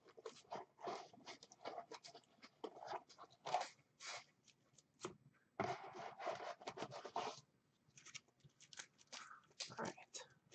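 Trading cards being handled: a quick, irregular run of short scrapes and flicks as cards slide against each other and against a cardboard card box, with a longer scraping rustle about halfway through.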